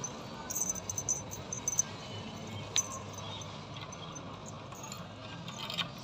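A bunch of keys jingling in hand in short bursts, then metallic clicks near the end as a key goes into a brass door lock.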